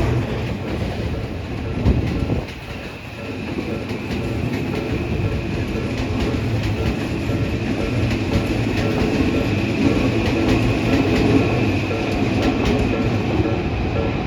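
Odakyu Odawara Line train running over a level crossing, its wheels clattering. The crossing's warning bell keeps ringing in a short, evenly repeating pattern over it.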